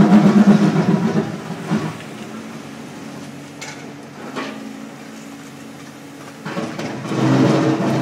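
JCB backhoe loader's diesel engine working under load while its bucket scrapes and knocks at packed ice on the road. Loud for the first second and a half, it eases to a steadier, quieter running through the middle with a few sharp knocks, then works hard again about six and a half seconds in.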